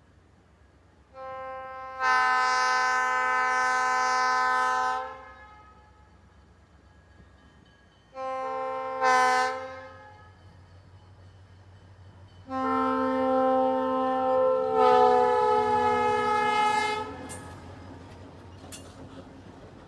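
Diesel locomotive air horn sounding three blasts, long, short, then long, each one steady chord of several tones. A low rumble from the locomotive runs beneath the horn, and there are a few clicks near the end.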